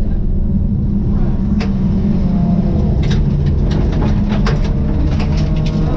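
Rally car engine running hard inside the caged cabin, steady under load, with gravel and stones ticking sharply against the underbody in scattered bursts.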